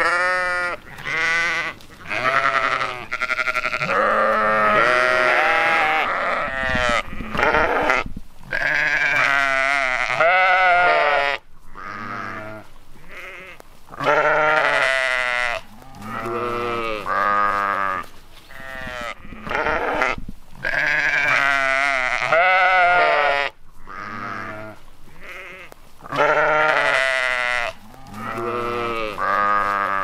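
Flock of sheep bleating, many voices overlapping in a near-continuous chorus of wavering calls with short pauses between them.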